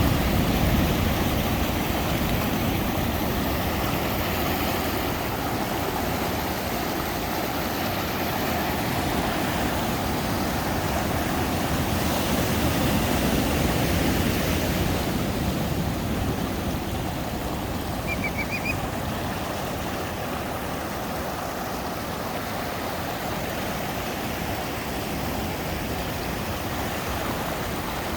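Ocean surf washing in a steady rush that swells and eases slowly. A brief high chirp sounds faintly about two-thirds of the way through.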